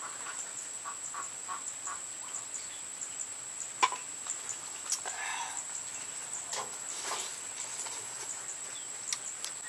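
Chickens clucking in the background while a man eats noodles with chopsticks: a couple of sharp clicks about four and five seconds in, and a short noisy eating sound just after, over a steady high-pitched whine.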